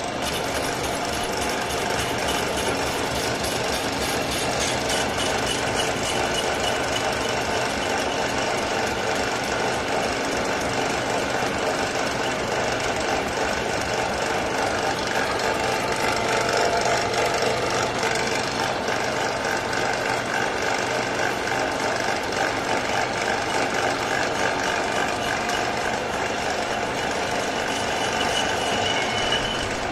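United heavy-duty belt-driven lathe running with its four-jaw chuck spinning while a cutting tool turns a metal shaft, a steady, loud mechanical rattle and whir.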